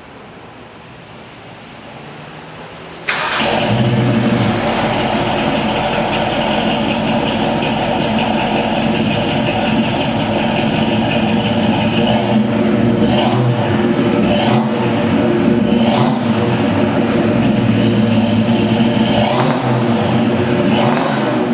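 1972 Ford Mustang Mach 1's 351 Cleveland V8 starting up about three seconds in, then idling steadily through its exhaust.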